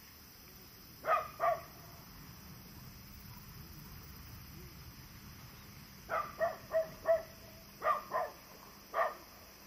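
A dog barking in short barks: two about a second in, a quick run of four around six seconds, then two more and a single bark near the end.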